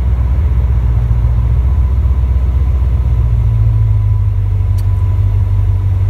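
1973 Corvette Stingray's V8 engine running steadily, a low drone heard from inside the cabin, with no rattles or squeaks over it.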